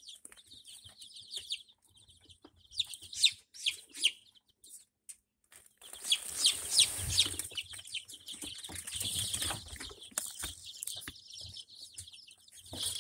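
A group of week-old ISA Brown chicks peeping in short, high, falling chirps, with a louder burst of peeps about six seconds in. A stretch of rustling runs under the peeps through the middle.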